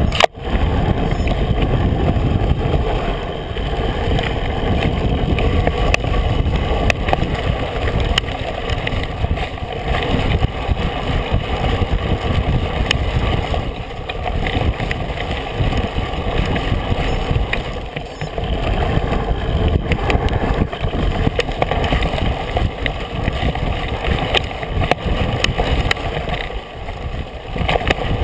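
Riding noise from a bike-mounted camera: wind rumbling on the microphone over the fat-tire mountain bike's tires rolling on dirt trail, with frequent small rattles and clicks as the bike bounces along. The level swells and eases with the riding speed.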